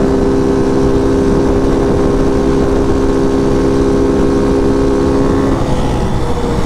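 Hawk 250 DLX's single-cylinder engine held at wide-open throttle at its top speed of about 64 mph, a steady drone at constant pitch, with heavy wind rumble on the microphone. Near the end the engine note wavers and dips slightly.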